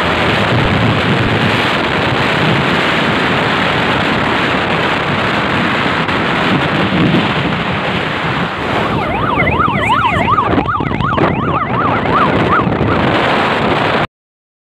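Wind rushing over the microphone with road noise from a moving vehicle. About nine seconds in, police sirens join for a few seconds with a fast rising-and-falling yelp. All sound cuts off suddenly near the end.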